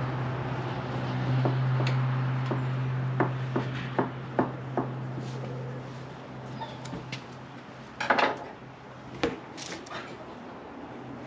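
Metal parts of a tripod deer feeder clinking and knocking as they are handled and fitted together: a run of five sharp taps a little under half a second apart, then a louder clatter about eight seconds in, over a steady low hum.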